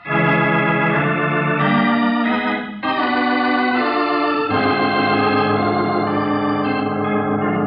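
Organ musical bridge: a loud run of held chords that shift every second or two, starting abruptly. It is the kind of organ sting that marks a scene change in a radio drama.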